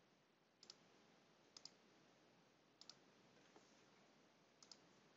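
Faint computer mouse clicks: four quick double clicks spread over about five seconds, over a low hiss.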